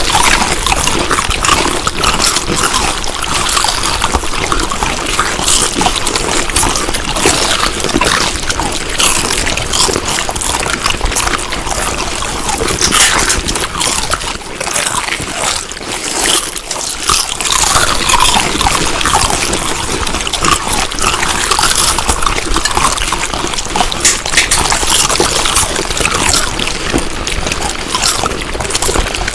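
Close-miked chewing of food: a continuous run of wet, smacking mouth sounds with dense small clicks and crackles.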